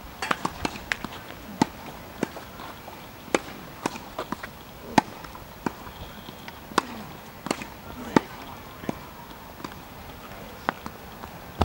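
Tennis rally on a hard court: a series of sharp, irregular pops as the ball is struck by rackets and bounces on the court surface.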